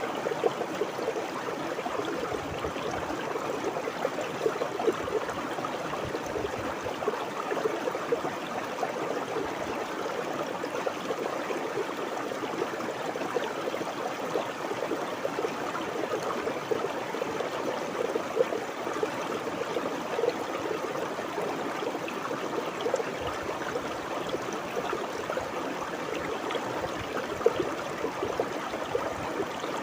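Stream water flowing steadily over rocks, a constant babbling with small splashes and gurgles.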